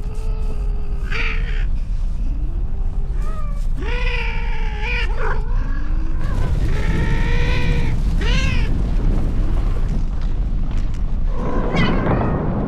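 Domestic cats caterwauling in a mating scuffle: several long, wavering yowls and screeches that rise and fall in pitch. Near the end a rough rumbling roar of an erupting volcano comes in.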